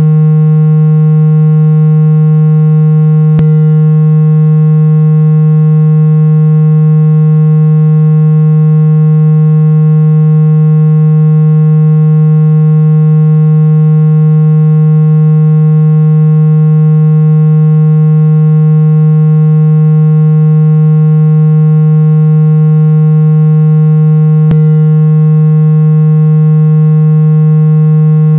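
A steady, loud electronic tone, a low buzzy hum with a row of overtones above it, held without any change in pitch or level. It is played as a treatment sound meant to open blocked ears. Two faint clicks break it, a few seconds in and near the end.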